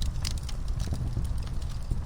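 Wood fire in a fireplace crackling, with frequent sharp irregular pops and snaps over a steady low rumble.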